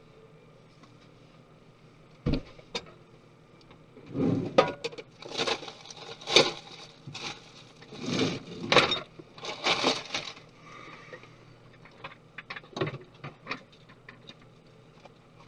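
Handling noise from parts and tools being moved on a hard surface: a sharp knock about two seconds in, a run of scraping and rustling through the middle, then a few light clicks near the end.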